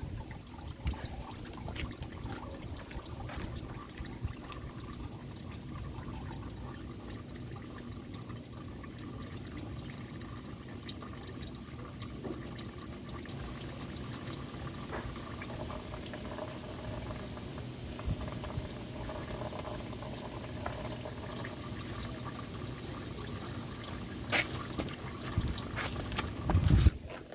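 Engine oil running in a steady stream from the Porsche Cayman's engine into a catch pan during an oil change, with a couple of sharp knocks near the end.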